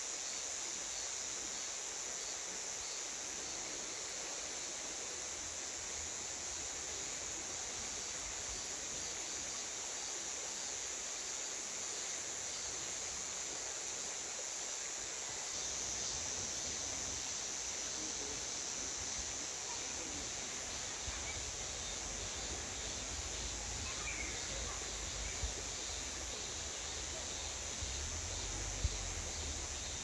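Cicadas buzzing steadily over the rushing of a stream. A low rumble comes in about halfway through, and a few faint clicks sound near the end.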